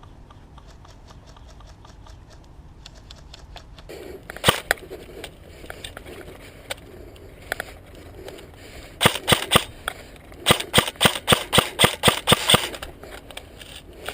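Airsoft electric M4 rifle firing: a single shot about four seconds in, then a short string and a longer run of about a dozen rapid single shots, roughly six a second. Fainter, evenly spaced ticks come before the first shot.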